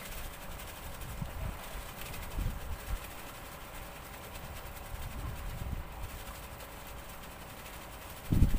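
Wind buffeting the microphone in uneven low rumbles, over a faint steady hum like a distant motor. A stronger gust comes near the end.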